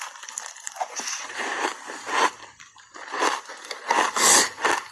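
Close-up crunching and crackling of refrozen ice coated in matcha powder being bitten and chewed, in irregular sharp crunches, with the loudest crunch a little after four seconds in.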